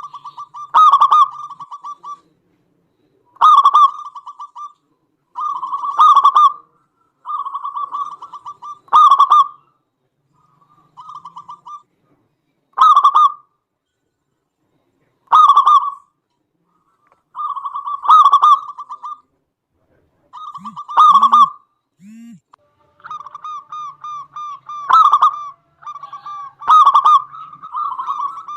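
Local perkutut (zebra dove) calling: a trilled coo of quick repeated notes with loud accented notes, the phrase repeating every two to three seconds.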